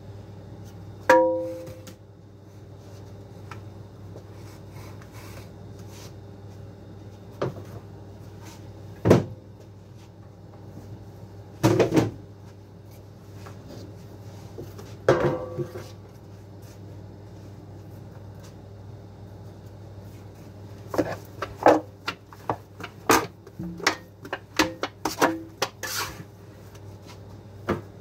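Hollow plastic knocks and thuds as dough tubs are handled, swung and set down: a few single knocks, then a quick run of them near the end, some ringing briefly. A steady low hum from the bakery machinery runs underneath.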